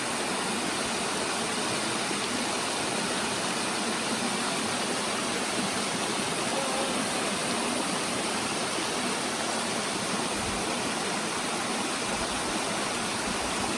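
Steady rush of water from a rocky stream and waterfall, an even, unbroken noise.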